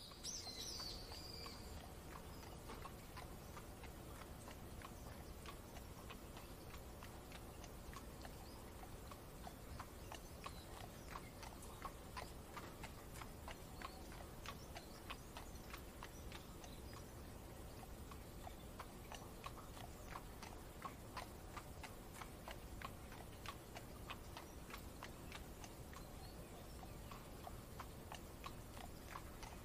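Horse hooves clip-clopping at a steady walking pace, a run of short even knocks, over a steady low rumble of a carriage ride in the rain. A brief high chirp sounds in the first second.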